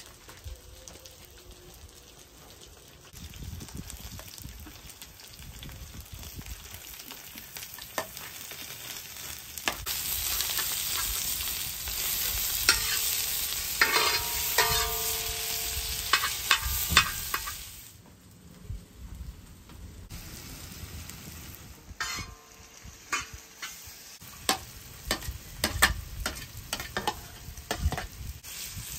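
Food frying in a pan, the sizzle swelling loud about a third of the way in and dropping back about two-thirds through, while a utensil stirs and knocks against the pan with sharp clicks and brief metallic rings.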